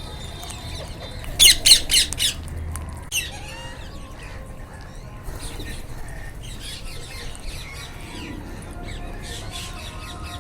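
A flock of wild Indian ringneck parrots (rose-ringed parakeets) calling: four loud, harsh squawks in quick succession about a second and a half in, another call a second later, then fainter scattered calls and chatter.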